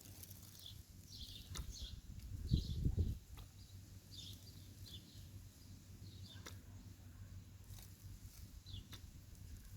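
Small birds chirping in short, falling calls, repeated every second or so. A brief low rumble about two and a half seconds in is the loudest sound, with a few faint clicks.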